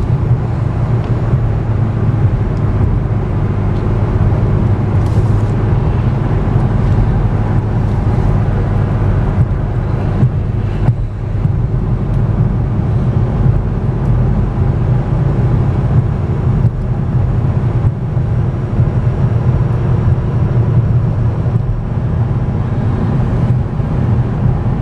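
Steady road and tyre noise inside the cabin of a 2014 Cadillac ELR cruising at highway speed, a continuous low rumble.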